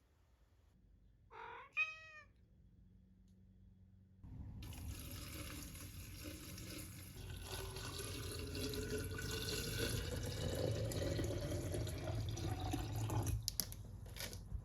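Water running from a tap into a pot or kettle for about nine seconds, its note slowly rising as the vessel fills, then shut off near the end, followed by a couple of clicks. A short high squeak comes about two seconds in, before the water starts.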